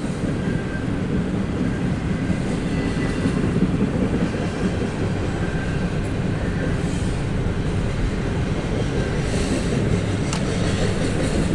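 CSX intermodal freight train passing on the main line: a steady rumble of wheels on rail, with a few faint clicks near the end.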